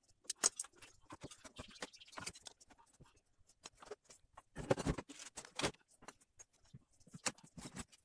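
Scattered clicks, knocks and rustles of a twin-tub washing machine's spin-dryer motor and its wires being handled and pulled out of the plastic base, with a heavier clatter about five seconds in.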